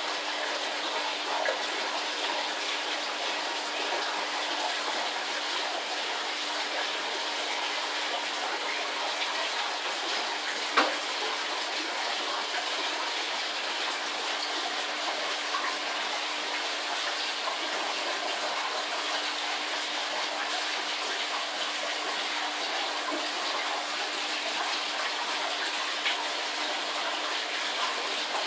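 Aquarium water rushing steadily from the filter return and air bubbles, with a low steady hum under it. There is one sharp knock about eleven seconds in.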